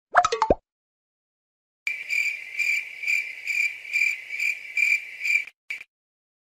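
Cricket chirping sound effect, the comedy 'crickets' cue for an awkward silence: a high, steady chirp pulsing about twice a second, starting about two seconds in and cutting off near the end. A brief springy bounce effect with gliding tones sounds at the very start.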